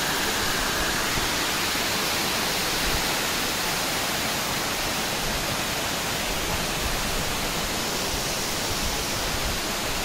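Waterfall pouring down a rock face, a steady, unbroken rush of falling water.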